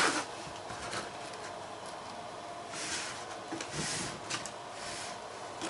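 Quiet handling of small packaged parts: a sharp click at the start, then soft rustling and a few light clicks about three to four and a half seconds in.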